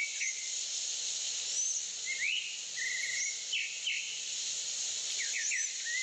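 Birds chirping, with short calls, a brief trill and a few quick rising whistles every second or so, over a steady high-pitched drone of insects.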